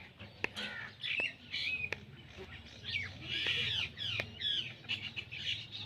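Parrot calling in a run of quick high chirps, some gliding up and down, with sharp clicks between them.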